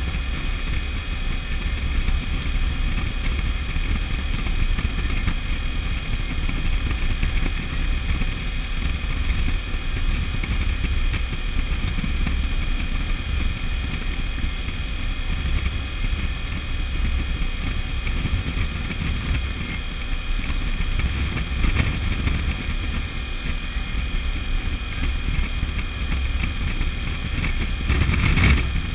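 Suzuki V-Strom DL1000 V-twin motorcycle running steadily at road speed, heavily mixed with low wind rumble on the bike-mounted camera's microphone. There is a brief louder rush near the end.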